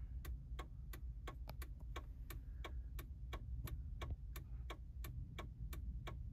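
A car's indicator flasher clicking steadily, about three ticks a second, over a low steady rumble.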